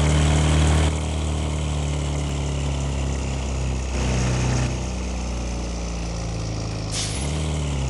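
Large bus engine running steadily, its pitch shifting a few times, with a short burst of hiss about seven seconds in.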